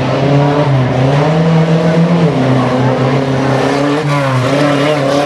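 Pickup truck engine revving hard, its pitch rising and falling as the truck is driven over dirt jumps.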